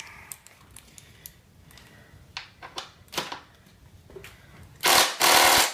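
Hand tools clicking and tapping against metal at a dirt bike's footpeg mount, a few separate knocks. About five seconds in, a loud harsh scraping rush comes twice in quick succession, under a second in all.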